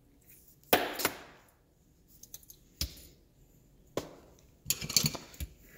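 Handling noise from a digital tire inflator being assembled: scattered clicks and knocks of its plastic body and brass hose fitting as the hose is threaded on, with a quick run of rattling clicks near the end.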